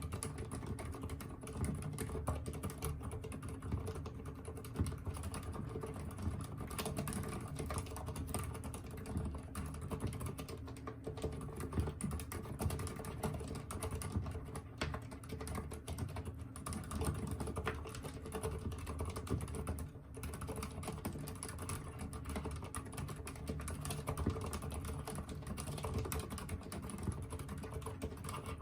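Thinkway Toceti mechanical keyboard with low-noise silent red switches being typed on continuously: a dense, steady run of key presses.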